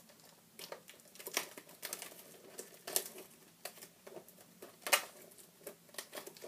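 A pen scratching and picking at the plastic shrink-wrap on a DVD box, with irregular small clicks and scrapes and a few sharper snaps, and some crinkling of the plastic.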